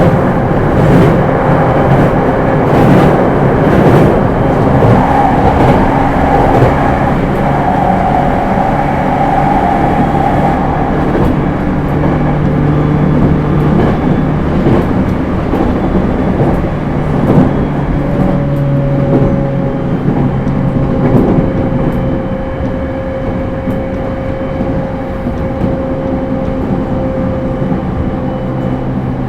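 JR East E231-series suburban EMU with Hitachi IGBT inverter running at speed, heard from inside the car: steady wheel-on-rail noise with occasional rail-joint clicks and humming motor and gear tones. In the second half a tone slowly falls in pitch and the sound eases slightly.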